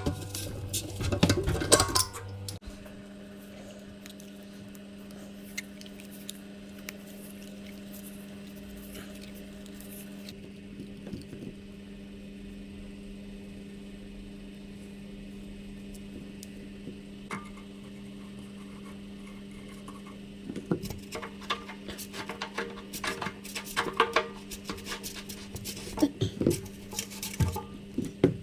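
Scattered metal clinks and taps from plumbing tools and fittings being handled, thickest over the last third, over a steady low hum.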